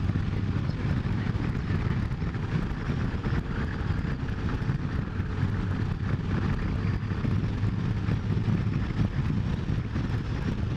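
Motorcycle cruising along a road at a steady speed: a steady engine hum under wind and road noise, picked up by a camera on the bike.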